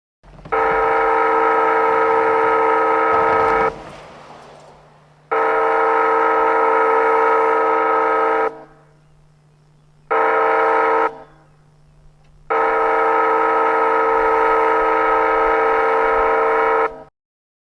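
Automated wayside horn at a railroad grade crossing sounding the standard crossing signal: two long blasts, one short, one long, which warns that a train is approaching the crossing. Each blast is a loud, steady horn tone that starts and stops sharply.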